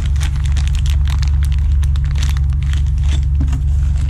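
Plastic packaging crinkling and clicking as suspension parts are handled out of their box, over a loud steady low hum.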